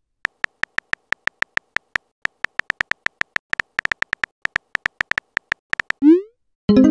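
Simulated phone-keyboard typing: one short, high, pitched click per keystroke at a quick, uneven pace. About six seconds in, a brief loud rising swoop cuts across the typing.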